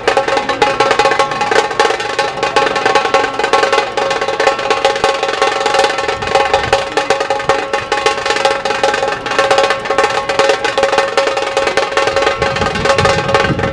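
Dhol-tasha ensemble drumming: dense, fast tasha strokes over dhol beats, played without a break.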